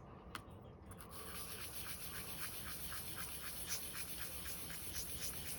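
Small RC differential gear being rubbed on 1000-grit super fine sandpaper, a fast run of even, scratchy strokes about three or four a second, with a single light tick just before they start: polishing the gear to head off tolerance problems.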